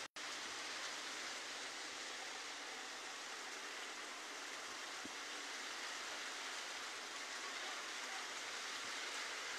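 Heavy rain pouring down onto flooded ground, a steady even hiss.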